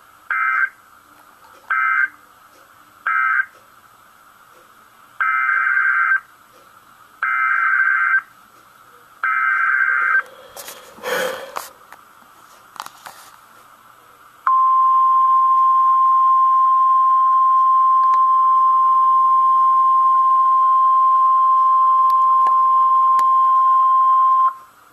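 NOAA Weather Radio / EAS alert tones: three short bursts of SAME digital data tones that close the previous message, then three longer SAME header bursts that open the next one. A short crackle of noise follows, then the steady 1050 Hz weather-radio warning alarm tone for about ten seconds.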